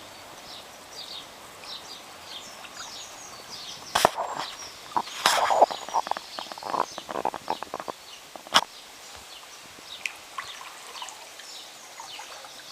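Kayak paddle dipping and splashing in river water, loudest from about four to eight seconds in, with a couple of sharp knocks. Small birds chirp over it throughout in quick, repeated high notes.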